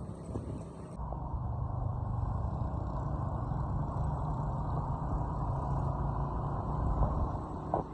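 Steady low rumble of a moving road vehicle, heard from on board.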